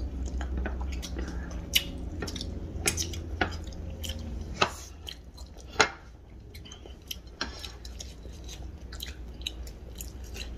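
Close-up mouth sounds of people chewing food: wet smacks and sharp clicks scattered irregularly, the loudest a little before six seconds in, over a faint low hum.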